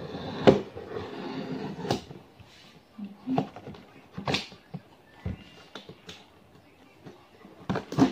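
Cardboard box being opened by hand from the top: rustling and scraping of the flaps, with a series of sharp knocks and taps on the box, the loudest near the end.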